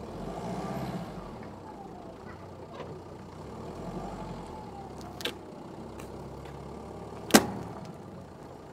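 Car engine running under load as it pulls on a tow strap to drag a cement mixer free of set concrete, the revs rising and falling twice. A sharp knock sounds about seven seconds in.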